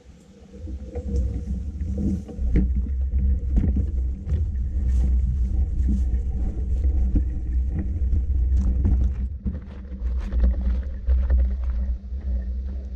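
Wind buffeting the microphone as a low rumble, with frequent knocks and rattles like a bicycle running over a rough path. It starts about half a second in.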